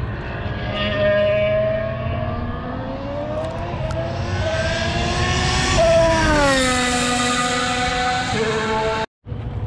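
Mercedes Formula 1 car's 1.6-litre turbocharged V6 engine heard from trackside, its note rising in pitch for about six seconds, then falling away as it passes, with a step down near the end. The sound cuts off abruptly about nine seconds in.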